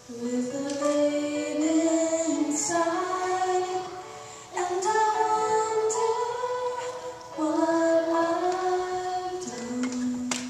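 A girl singing a slow solo into a microphone, in three phrases with short breaks for breath about four and a half and seven and a half seconds in.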